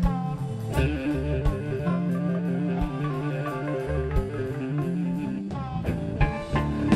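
Live blues-funk band playing with electric guitar, bass and drums. A fast two-note trill runs through the middle of the passage.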